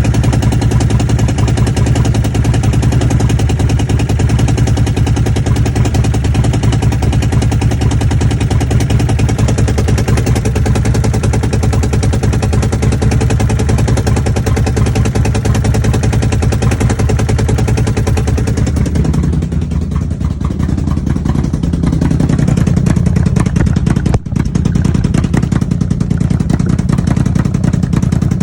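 A Commander's engine running steadily, its note changing about two-thirds of the way through, with a brief stumble a few seconds later; the owner suspects a misfire.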